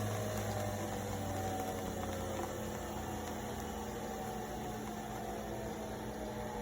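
Nespresso Vertuo Next coffee machine running mid-brew: a steady hum with a whine that slowly falls in pitch.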